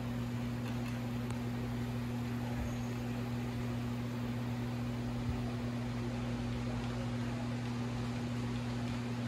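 HO scale model freight train running past on the layout: a steady rolling noise of the cars' wheels on the track over a constant low hum.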